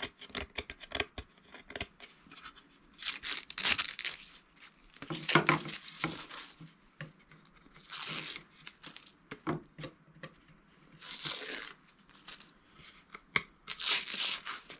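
Tape peeling off a cut birch plywood scroll-saw panel in a series of short ripping pulls, with crinkling of the stripped tape and small clicks between pulls.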